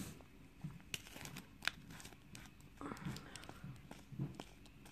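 Small plastic jar of acrylic nail powder being handled and its screw lid twisted off: a few faint sharp clicks over a light crinkling rustle.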